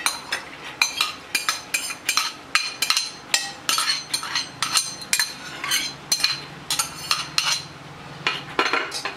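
Steel spoon scraping and tapping peeled val beans out of a glass bowl into a metal pot: a steady run of sharp clinks and knocks, about two to three a second, some ringing briefly.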